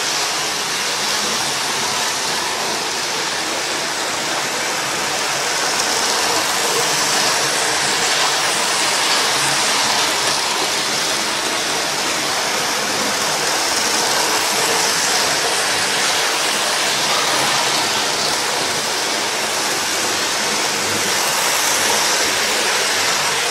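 Model trains running on the layout's track, a steady whirring rush of wheels and motors close to the microphone.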